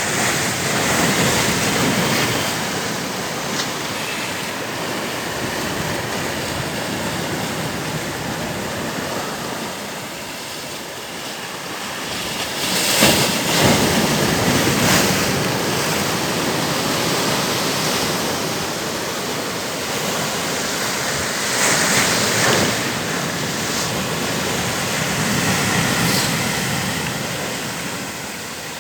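Steady rushing of water that swells louder a few times.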